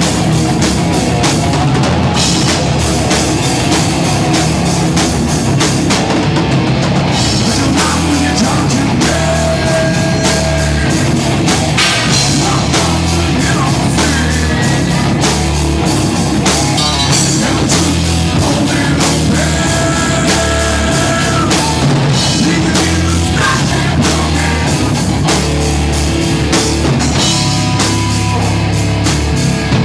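Live rock band playing loud, with a pounding drum kit and heavy, metal-style instrumentation.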